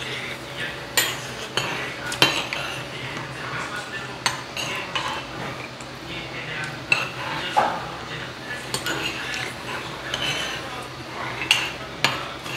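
Metal spoons clinking and scraping against earthenware ttukbaegi bowls and small steel bowls while eating soup, a sharp clink every second or so, over a faint steady hum.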